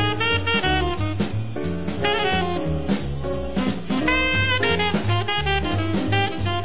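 1958 hard bop quintet recording (trumpet, alto saxophone, piano, bass and drums): a horn solos in quick melodic runs over bass, piano and drums.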